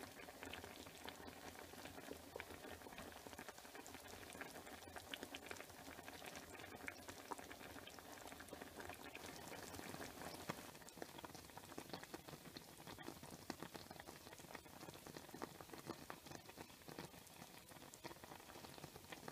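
Tomato-and-fish sauce simmering in a pan, a faint steady bubbling made of many tiny pops.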